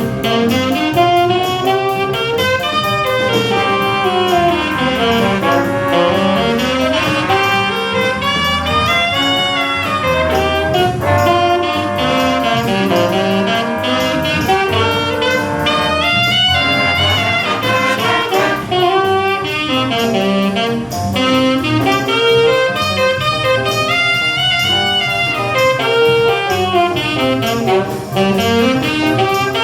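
School jazz big band playing a funky contemporary jazz chart: saxophones and brass play punchy horn lines over a steady drum groove, with a low riff that rises and falls and repeats every few seconds.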